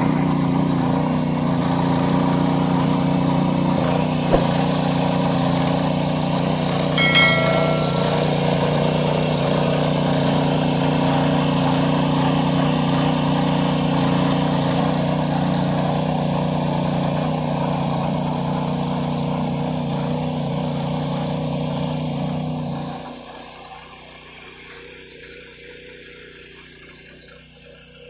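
The 7 hp engine of a walk-behind power weeder running steadily as its rotary tines till the soil. About 23 seconds in, the engine sound falls away, leaving a much quieter background.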